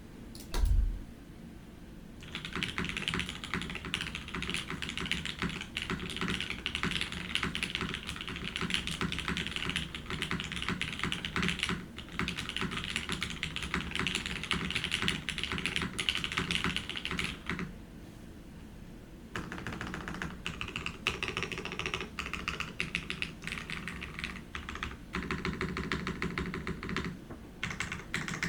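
Custom mechanical keyboard with a plastic case, lubed and filmed Cherry MX Hyperglide Black linear switches and DCX keycaps, typed on quickly in a steady stream of key clacks. A single deep thump comes under a second in, and the typing pauses for about two seconds partway through before carrying on.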